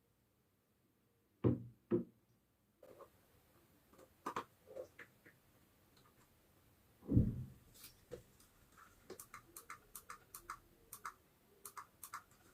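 Two sharp knocks, a heavier thump about seven seconds in, then a run of light clicks and taps from things being handled.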